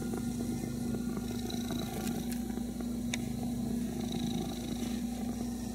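Domestic cat purring steadily, a continuous low rhythmic rumble close by.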